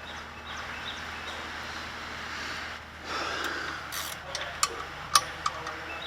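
Metal caliper bolts and a 12mm wrench being handled while the brake caliper bolts are started: a short scrape about three seconds in, then a few separate light metal clicks and clinks.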